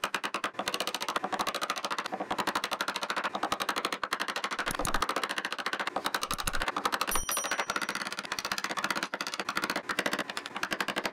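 Steel chisel cutting and prying waste wood out of a bow-tie mortise in a honeylocust slab: a fast, continuous clatter of sharp clicks and taps, many to the second.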